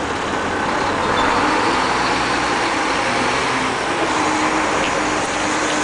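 Heavy diesel engine running steadily as a Komatsu PC800 excavator is moved along the street: a loud, continuous drone, with a faint steady tone coming in about four seconds in.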